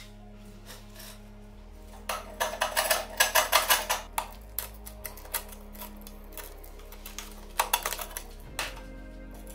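Flat-head screwdriver working against the rusty steel wire guard and frame of an old hurricane lantern, making rapid metallic clicks and scrapes. They come in a burst from about two seconds in and again shortly before the end, over background music.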